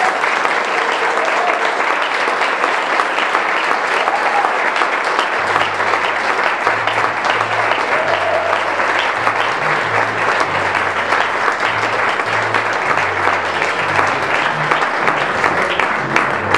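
Audience applauding at the end of a recited poem, with a few voices calling out near the start. From about five seconds in, low bass notes of music play beneath the clapping.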